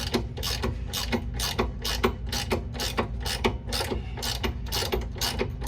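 Hand ratchet wrench clicking at about four clicks a second as a suspension nut is snugged down by hand, over a steady low hum.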